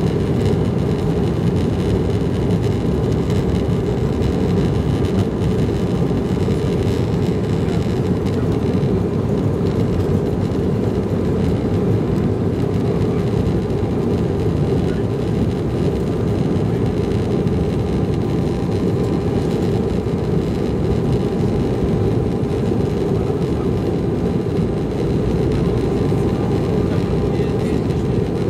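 Steady cabin noise of an Embraer 195 taxiing at low thrust: a constant low rumble from its General Electric CF34-10E turbofans and the rolling airframe, with a faint steady whine above it.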